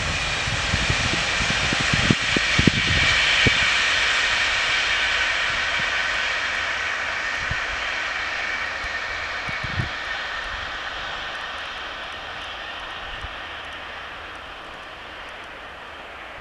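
Electric multiple unit passing at speed and pulling away, its running noise with a faint steady whine fading gradually as it recedes. A few low thumps sound in the first three seconds.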